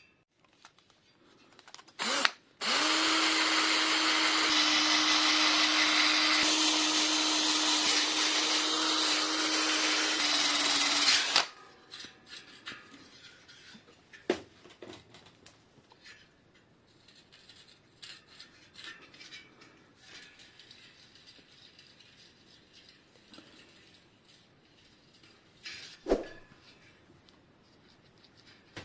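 A small electric power tool, like a drill, gives a brief burst, then runs steadily at one pitch for about nine seconds before stopping abruptly. A few light clicks and a knock follow.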